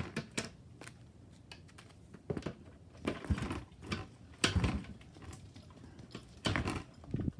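Old Yamaha dirt bike engine being kicked over repeatedly without catching: several short, uneven cranking bursts a second or so apart, with no steady running in between.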